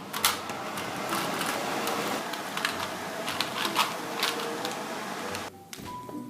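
Bacon sizzling in a frying pan: a steady hiss dotted with sharp crackles and pops, stopping about half a second before the end.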